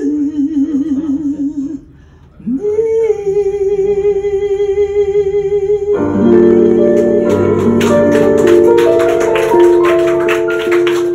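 A woman's singing voice with vibrato, a short break, then one long held note. About six seconds in, a digital piano and an archtop electric guitar come in with sustained chords and plucked notes.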